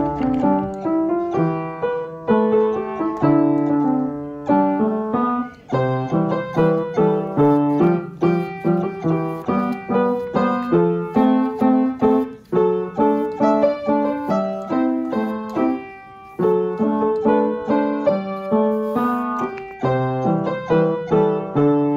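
Background piano music: a steady run of struck notes in short phrases, with brief pauses between them.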